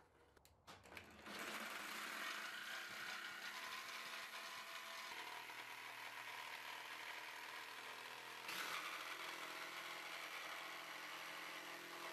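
Corded Skil jigsaw sawing through plywood, its reciprocating blade running steadily. It starts about a second in after a few clicks, and its pitch shifts partway through the cut.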